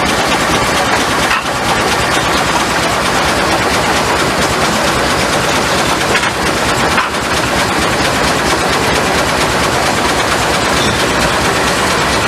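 Steam sawmill machinery running: a loud, steady, rapid mechanical clatter.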